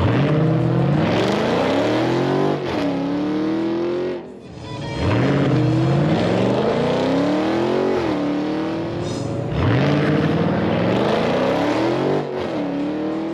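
Dodge Challengers accelerating hard from a standing start, one of them the 6.2 L supercharged V8 SRT Hellcat. Three runs follow one another: in each, the engine note climbs steeply for about two and a half seconds, then drops at an upshift. The sound is very loud.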